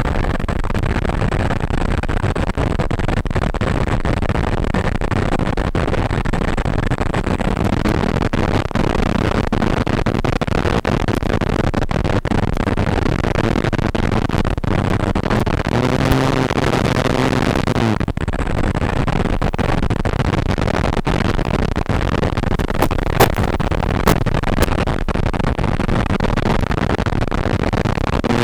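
Loud, steady wind rush on the onboard camera microphone of an RC RV-8 foam model plane in flight. The low drone of the plane's motor and propeller comes through faintly in the middle, more clearly for a couple of seconds about two-thirds in, then cuts off. A few sharp clicks come near the end.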